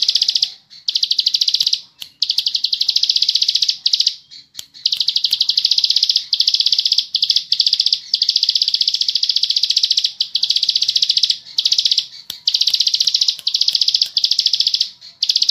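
A ciblek sawah (plain prinia) sings long, rapid buzzing trills in close-spaced phrases. Each phrase lasts one to two seconds, with only brief pauses between them.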